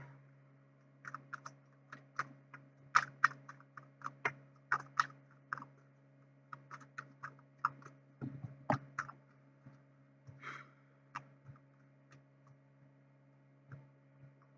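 Tarot cards being handled on a table: light, irregular clicks and taps, with a couple of duller knocks about eight seconds in, thinning out towards the end. A steady low electrical hum runs underneath.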